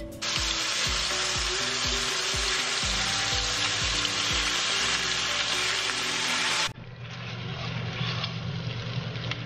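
Precooked sirloin strips sizzling in a frying pan, over background music with a steady beat. About seven seconds in, the sizzle changes abruptly to a quieter one with a low hum under it.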